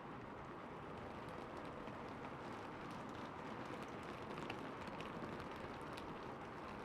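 Steady rain falling on a rooftop, an even hiss with many small drop ticks scattered through it.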